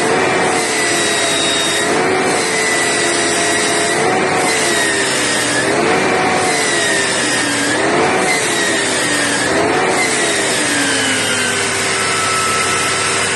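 Mercedes-Benz Travego coach's retarder whining over steady engine and road noise. The whine rises and falls in pitch about every two seconds, then slides down slowly near the end.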